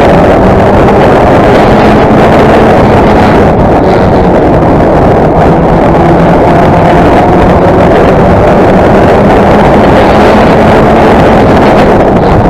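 Race car engine running hard at steady high revs, heard very loud from an onboard camera on the car, with wind rushing over the microphone.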